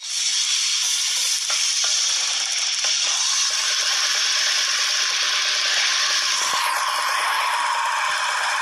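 Small poodle-type dog snarling and growling without a break, a harsh, raspy death-metal-like growl. About six and a half seconds in, the sound shifts with a short falling squeal.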